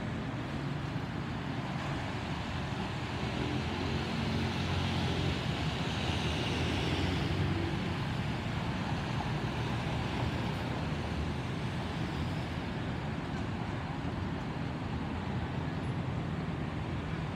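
Distant Airbus A320 with CFM56 jet engines passing overhead: a steady jet rumble and hiss mixed with urban road traffic noise, swelling a few seconds in and then easing slightly.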